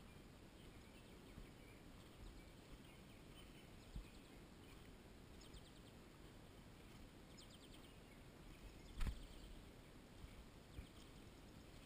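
Quiet outdoor ambience: a steady low background hiss, with two short, faint, rapid high bird trills near the middle and a single sharp click about nine seconds in.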